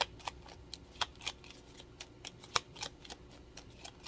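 A deck of oracle cards being shuffled by hand: a quick run of short card snaps and slaps, about three or four a second, the loudest about two and a half seconds in.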